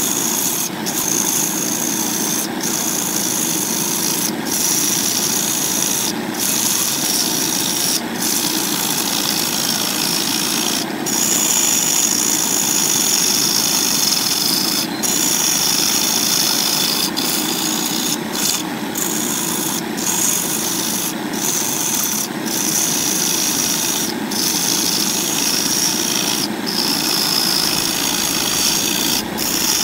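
Wood lathe running while a turning gouge cuts a spinning blank of glued wooden rings, a steady scraping, hissing cut over the motor's hum. The sound is broken by short dropouts every second or two.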